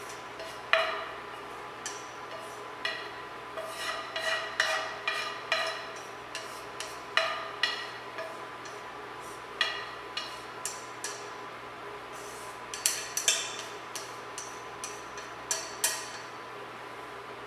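Wooden chopsticks tapping and scraping against a stone-coated nonstick frying pan as stir-fried parsley and dried tofu is pushed out into a bowl. The sound is irregular sharp clicks and knocks, sometimes several in quick succession, over a faint steady hum.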